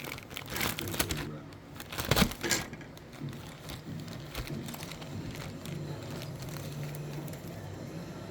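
Plastic model-kit bags crinkling and the plastic parts trees clicking as they are unbagged and handled. Several sharp rustles and clicks come in the first three seconds, then it settles to a faint steady low hum.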